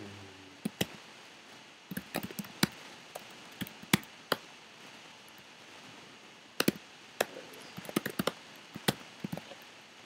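Computer keyboard being typed on: sharp key clicks in irregular short runs, with pauses of a second or more between them.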